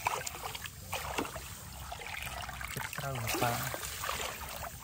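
Shallow paddy water sloshing and splashing as a woven bamboo basket is pushed and scooped through it by hand, with repeated short splashes over a running swish of water.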